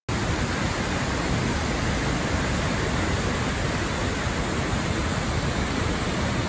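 Large waterfall, a steady rush of falling water, cutting in suddenly at the start.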